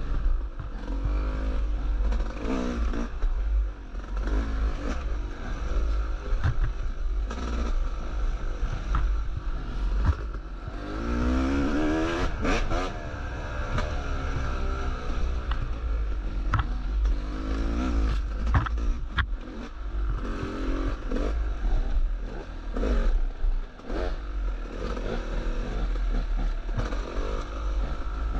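Two-stroke dirt bike engine revving up and down again and again as the bike accelerates and backs off between turns. Underneath runs a steady low rumble of wind on the microphone, with scattered clatters and knocks as the bike rides over roots and stones.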